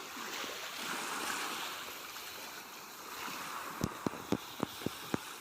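Small waves washing on the shore, swelling and easing, with a quick run of about six light clicks near the end.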